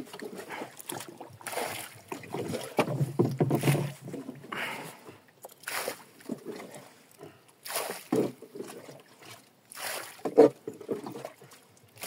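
Small rowing boat with people in it: irregular knocks, scrapes and rustles of gear against the hull, several sharp noisy bursts a second or two apart.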